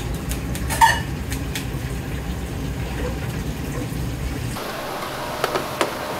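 Restaurant kitchen noise: a steady low rush with a sharp clink about a second in. The rush drops away about four and a half seconds in, and a couple of light knocks follow near the end.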